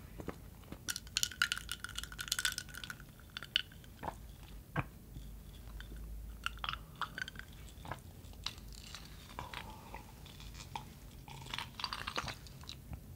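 Ice cubes clinking against a double-walled glass of iced coffee as it is lifted and drunk from. Bright clusters of clinks come about a second in and again near the end, with scattered single clicks between.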